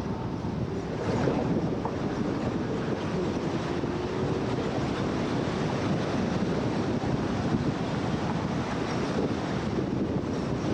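Steady rumble of road traffic with wind buffeting the microphone; no single engine rises or falls in pitch.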